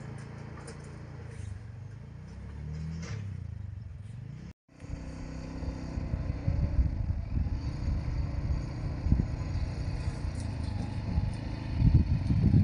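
Kuba Loncin XWolf 300 ATV engine running as the quad drives closer, its pitch wavering with the throttle. About four and a half seconds in the sound breaks off briefly, then comes back louder and rougher, and it is loudest near the end as the ATV nears.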